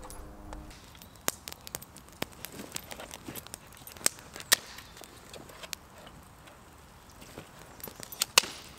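Small open wood fire of thin green sticks crackling, with sharp irregular pops scattered through, the loudest about four seconds in and again near the end.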